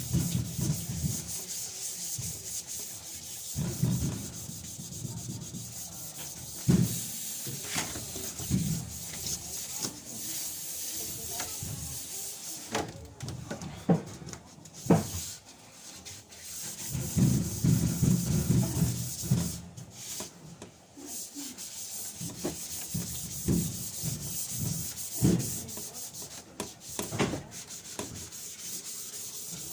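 Sandpaper rubbing over the sheet-metal body of a washing machine, in irregular stretches of scrubbing broken by short pauses and a few sharp knocks.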